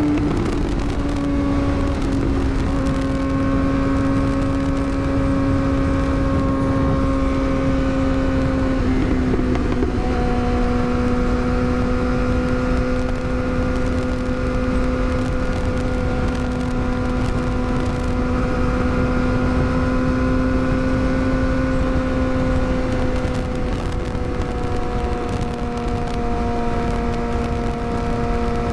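Yamaha R6's inline-four engine cruising at a steady, high-pitched note under wind rush. The note drops slightly near the start and breaks briefly about nine seconds in.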